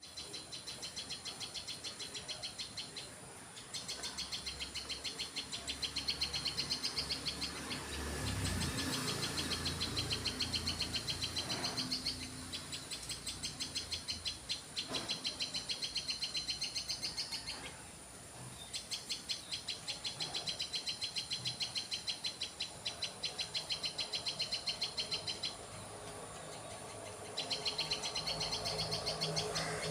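Small birds calling in fast runs of high, evenly repeated chirps, several a second. The runs last several seconds each, with short breaks between them.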